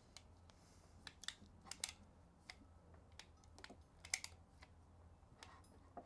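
Apollo one-hand PEX-B pinch clamp tool being ratcheted closed on a stainless-steel pinch clamp over a PEX barb fitting: a string of faint, sharp clicks at uneven intervals as the handle is pumped.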